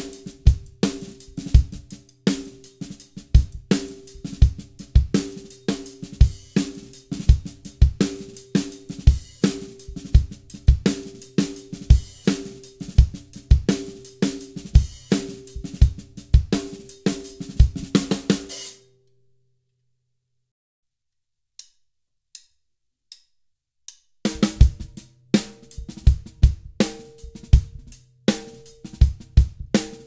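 Drum kit groove of kick, hi-hat and a Dunnett 14x6 snare drum, its tension rods one full turn past finger tight. The playing stops about 19 seconds in, leaving near silence with a few faint ticks, then resumes about 24 seconds in with the snare ringing at a higher pitch, tightened to one and a half turns past finger tight.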